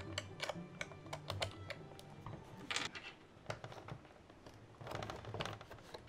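Light, irregular clicks and taps of hands handling and fitting the plastic frame, solar panel pieces and cables of a Guardian acoustic monitoring device on a tabletop, one click a little louder about halfway through.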